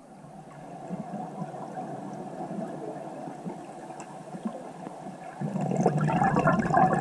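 Underwater bubbling and gurgling, crackly in texture, getting much louder about five and a half seconds in.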